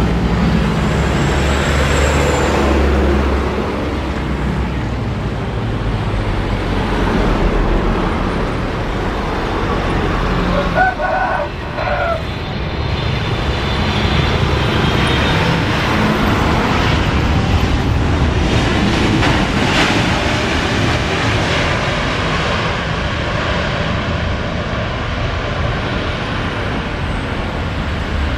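Boeing 777 airliner's twin jet engines: a steady loud roar as it comes in to land, touches down and rolls out along the runway.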